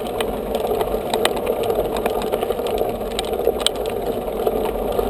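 Mountain bike rolling fast on a paved road, heard from a camera mounted on the bike: a steady rumble of tyres and wind with frequent rattling clicks.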